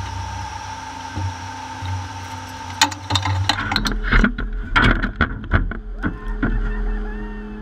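LS3 V8 of a Formula Offroad car running steadily at low revs, heard from inside the cockpit. A run of sharp knocks and rattles comes from about three to six seconds in.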